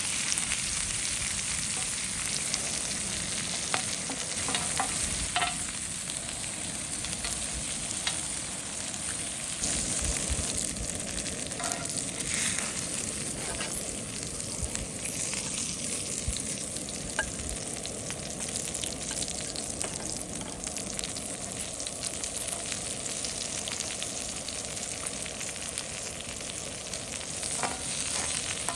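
Food frying in a pan: a steady sizzle with occasional light clicks.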